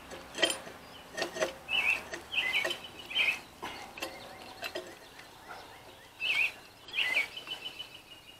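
Small birds chirping in short calls every second or so, ending in a quick trill, over a few light clicks and knocks from the hydrant's metal stem being handled.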